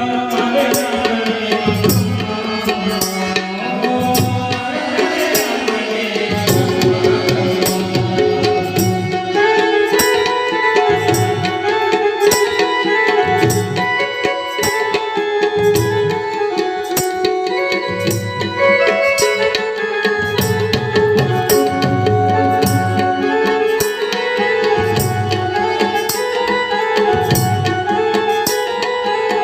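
Garba music played loud through a PA sound system: a steady tabla and drum rhythm under a melody, with deep drum hits every second or two.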